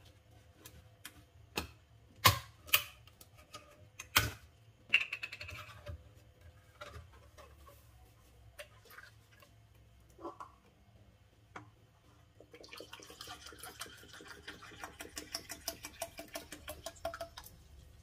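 A few sharp knocks and clicks of a plastic jug and measuring cup being handled. Then, about two-thirds of the way in, white vinegar glugs out of the plastic jug into the measuring cup for about five seconds.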